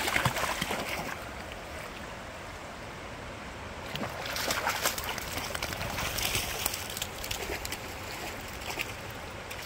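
Dogs splashing and wading in a fast-flowing creek, over the steady rush of the current. The splashing is strongest at the start and again from about four to seven seconds in.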